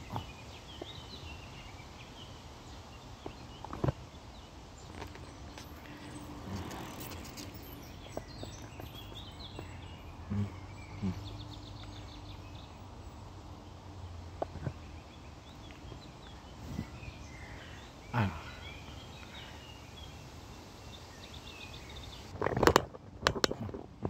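Riverside woodland ambience: songbirds chirping here and there over a steady background noise, with a faint low hum through the middle. A few scattered knocks, likely footsteps, and a quick cluster of them near the end.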